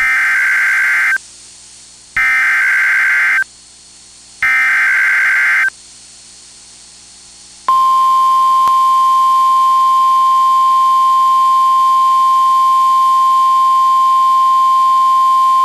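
Three short bursts of EAS SAME header data, about a second each and a second apart, then a single steady NOAA Weather Radio 1050 Hz warning alarm tone starting about halfway through. Together they are the coded header and attention signal that open a broadcast severe thunderstorm warning and trigger alert receivers.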